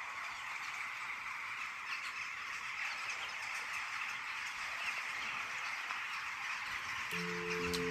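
Dense chatter of many birds calling together, a steady outdoor chorus. Soft piano music comes in near the end.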